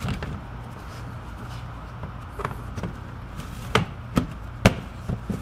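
Plastic fog-light grille being pressed into a car's front bumper: about half a dozen sharp clicks and snaps as its tabs seat, the loudest near the end, over a steady low hum.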